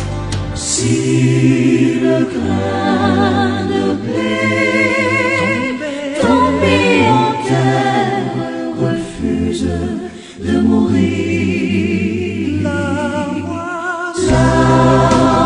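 A choir singing a Christian hymn, the voices held with vibrato over steady low bass notes. There is a brief drop in loudness about ten seconds in.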